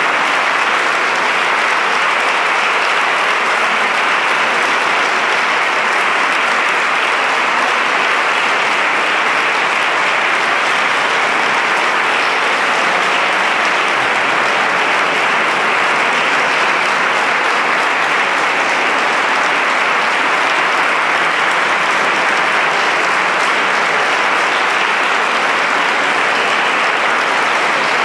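Audience applauding steadily, a dense unbroken clapping that holds the same level throughout.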